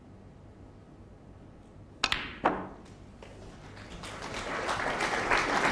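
Snooker shot: two sharp clicks of cue and balls about two seconds in, less than half a second apart. After that, the arena audience's murmur swells toward the end.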